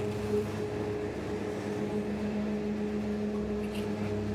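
Steady mechanical hum of a high-speed quad chairlift during the ride up: a low drone carrying two steady tones, with a faint tick near the end.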